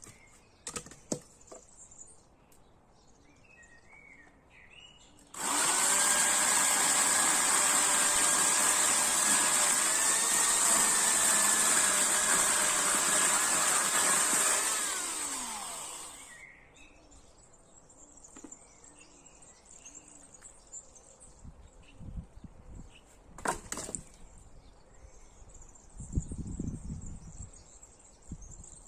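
Chainsaw engine running steadily at high speed for about nine seconds, then dropping in pitch and dying away as it is shut off. Birds chirp in the quiet before and after, and there are a few knocks near the end.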